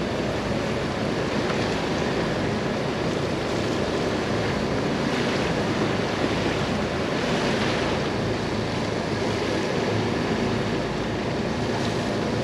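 Steady rush of wind and choppy open sea washing around a sailing catamaran in about 25 to 26 knots of apparent wind, with gusts buffeting the microphone.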